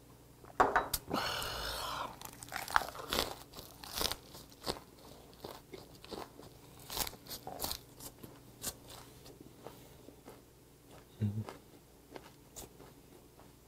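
Close-miked eating: a person crunching and chewing a mouthful of a raw napa-cabbage leaf wrapped around gwamegi (dried herring), with many separate crisp crunches. A louder mouth sound comes about half a second in, and a short low hum of satisfaction near the end.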